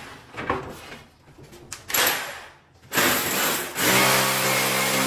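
A few short bursts of hiss, then an air compressor motor starts up about four seconds in and runs with a steady hum, supplying the pneumatic nail gun.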